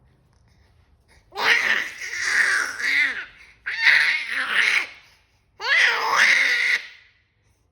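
Five-month-old baby's loud, high-pitched vocalising: three drawn-out squealing outbursts, the pitch sliding up and down, with short pauses between them.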